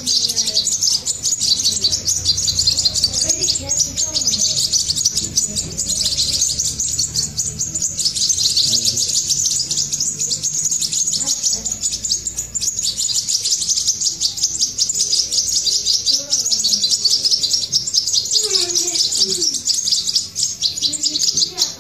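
Hand-reared nestling songbirds begging while being fed, giving a continuous stream of rapid, high-pitched chirps.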